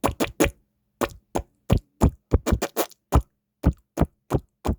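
A rapid, uneven run of sharp taps or knocks, about three or four a second, over a faint steady hum.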